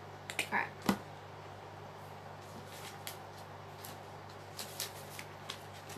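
Quiet handling of a paper art journal: a few short clicks and soft paper rustles as the page is touched, over a steady low hum.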